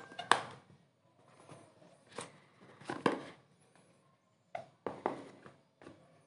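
Cardboard smartphone boxes and their lids being handled and set down on a wooden tabletop: a string of sharp knocks and light clatters, about half a dozen, with brief rustles between them.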